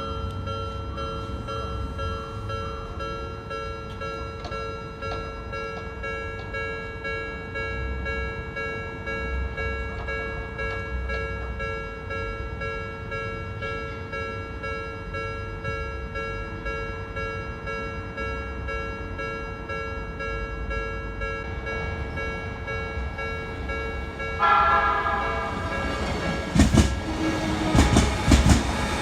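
Japanese level-crossing warning bell ringing steadily, its "kan-kan" tones over the rumble of an approaching train. About 24 seconds in, a train horn sounds, and near the end the train runs over the crossing with loud clacks from its wheels on the rail joints.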